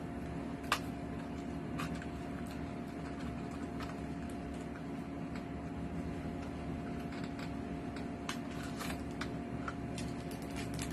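A small cardboard box of a die-cast toy car being handled and opened, giving scattered light clicks and taps, the sharpest about a second in. A steady hum runs underneath.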